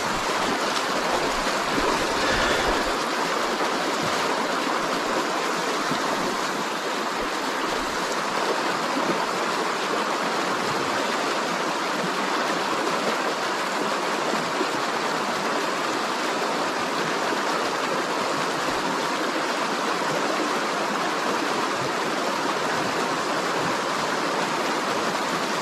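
Shallow river riffle rushing over rocks, a steady, even flow of white water close to the microphone.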